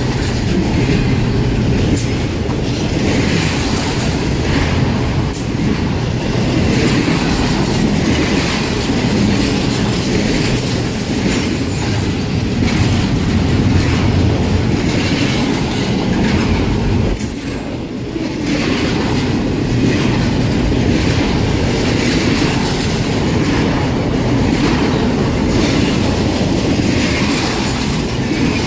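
CSX freight train's cars rolling past at close range: a steady rumble of wheels with repeated clicking over rail joints and a faint high wheel squeal around the middle. The sound dips briefly a little past halfway.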